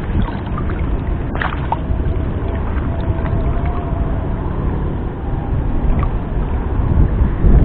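Wind buffeting the camera microphone over water lapping and sloshing around a wading angler, with a few small handling clicks as he holds a freshly caught tilapia.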